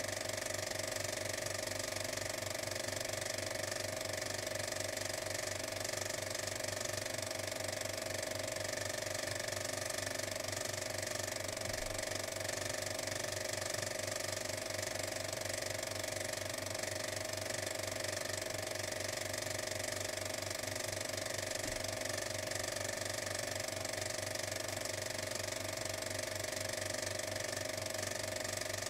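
A steady mechanical running sound with a fast, even clatter, unchanged in level and pace throughout.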